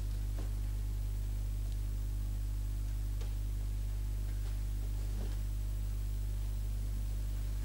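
A steady low mains hum with faint hiss and nothing else: the electrical hum of an old analogue video recording.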